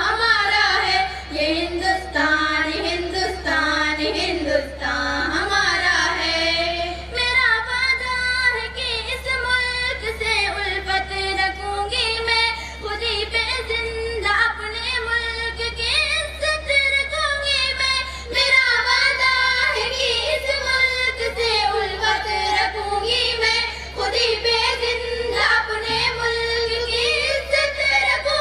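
Solo female voice singing a Hindustani tarana, a patriotic song, in long held notes that waver and glide.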